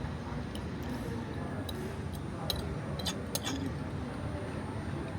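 Open town-square ambience: a steady low rumble with faint background voices. A few sharp clicks come near the middle.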